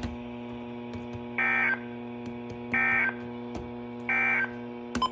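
NOAA Weather Radio SAME data bursts: three short, identical buzzy warbles about a second and a half apart, the end-of-message code that closes the weekly test. A steady radio hum runs underneath.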